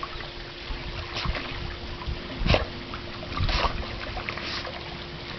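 Pool water lapping and splashing, with a few short splashes about a second apart over a steady faint hum.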